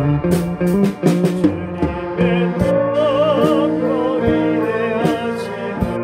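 Live church band playing a hymn: a sustained lead melody with vibrato over keyboard chords, with regular cymbal or drum strokes.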